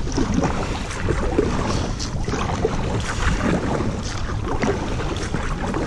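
A double-bladed kayak paddle dipping and pulling through river water, with splashes and drips on each stroke, over a steady low rumble.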